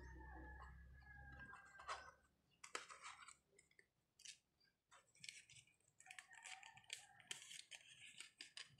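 Faint crinkling of the clear plastic bag around a coiled USB cable as it is handled, with scattered small clicks, starting a couple of seconds in after a faint low hum.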